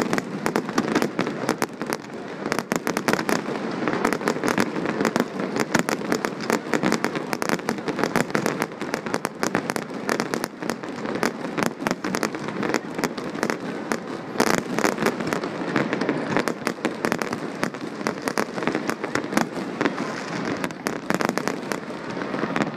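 Aerial fireworks going off in a continuous rapid stream of bangs and crackles, many reports a second.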